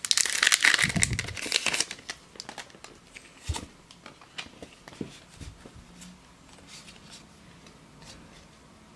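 Foil booster-pack wrapper crinkling loudly for about two seconds, then scattered soft clicks and rustles of trading cards being handled.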